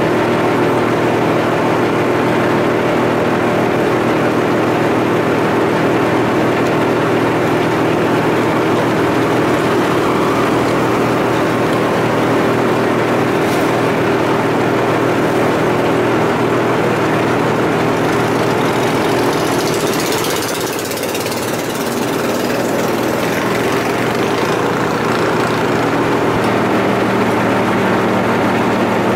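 Boat engine running steadily at an even pitch, heard from on board the moving boat. About twenty seconds in it dips slightly under a brief hiss-like noise, and near the end its pitch shifts a little.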